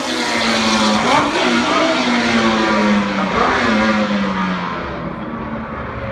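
Tyrrell P34's Ford Cosworth DFV V8 racing engine running on track. Its note swings up in two quick revs, about a second in and again past three seconds, then drops and fades away as the car moves off.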